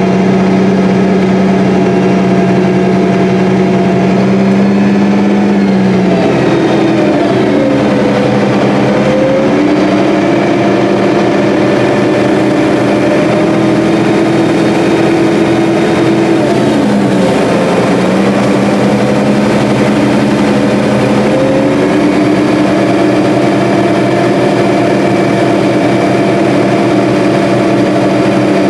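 Combine harvester running steadily under harvesting load. The engine pitch sags and recovers twice, about six seconds in and again around seventeen seconds.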